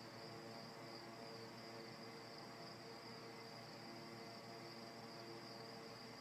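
Near silence: faint room tone with a steady high-pitched whine and a faint low hum.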